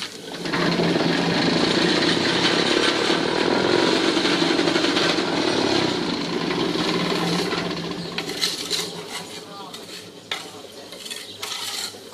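Electric vibrator motor of a cinder-block vibrating press switched on, shaking the mould full of slag-concrete mix to compact it. It runs with a loud, steady rattling hum for several seconds, then fades as it winds down, followed by a few sharp clanks.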